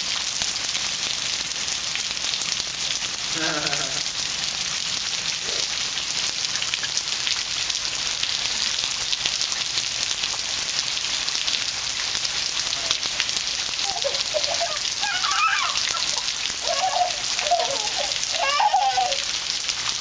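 Heavy rain pouring onto concrete and puddles, a steady hiss. A few brief voice sounds break through, once early and several times in the last third.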